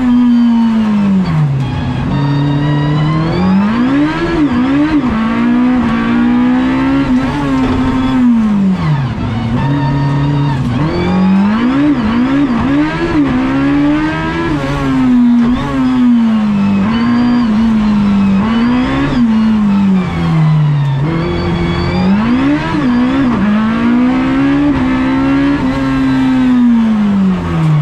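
Autobianchi A112 race car's four-cylinder engine heard from inside the cabin, revving hard and falling back again and again through the gears. At several points it gives a quick run of short rev blips.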